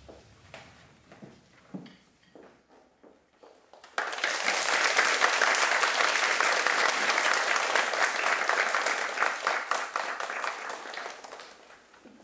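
Audience applauding in a small hall: the clapping starts suddenly about four seconds in, holds for several seconds and dies away near the end. Before it come a few faint knocks.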